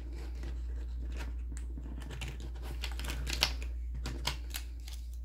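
Light, scattered clicks and taps of small objects being handled on a tabletop, over a steady low hum.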